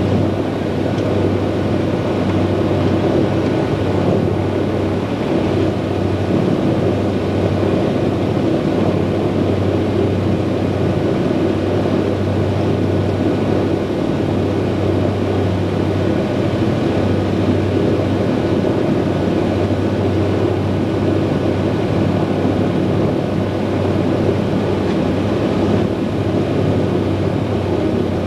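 The Lockheed Super Constellation's four Wright R-3350 radial piston engines running steadily, heard from inside the cabin as an even, loud propeller drone with a deep hum.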